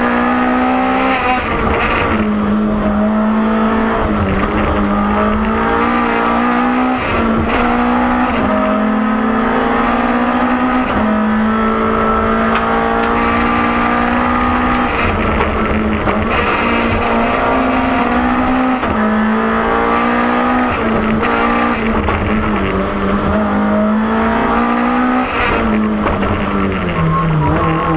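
BMW M3 E30 Group A rally car's four-cylinder engine at racing pace, heard from inside the cabin, loud throughout. Its revs climb and drop again and again as the driver shifts gears and lifts for corners.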